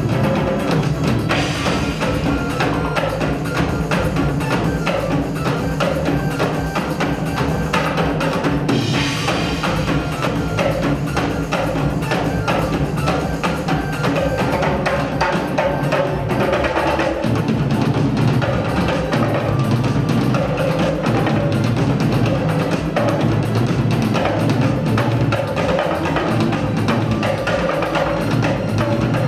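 Belly dance music with busy drumming from hand drums and a drum kit under a sustained melody.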